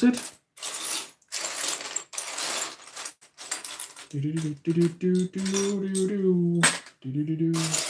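Loose plastic LEGO bricks clattering and rattling as hands rummage through a pile of pieces on a wooden table. About four seconds in, a person hums a few held notes over the rattling.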